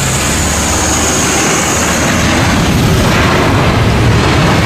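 Jet engines of a Boeing 737 airliner running loudly as it touches down and rolls out on the runway, with a steady heavy noise and a high whine that fades about two seconds in.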